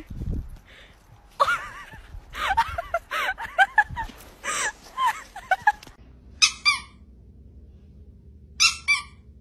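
A dog's rapid high whines and yelps, then two short high squeaks about two seconds apart.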